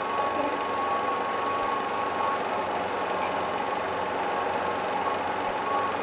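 Film projector running: a steady mechanical whir with a thin, constant high hum.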